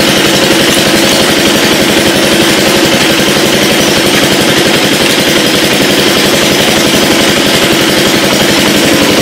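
Small engine idling steadily with a rapid, even beat.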